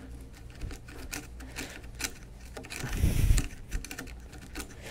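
Quarter-inch chisel picking and scraping loose wood chips out of the bottom of a mortise: a run of small, irregular clicks and scratches, with one louder bump about three seconds in.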